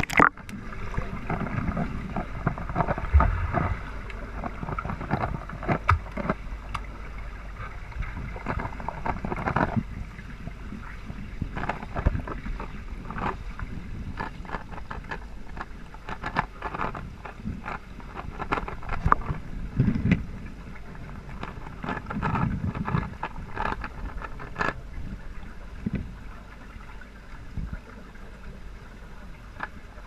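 Muffled underwater sound picked up by a submerged camera in a swimming pool: a sudden splash at the very start, then a steady wash of water with low rumbles and many small clicks and knocks.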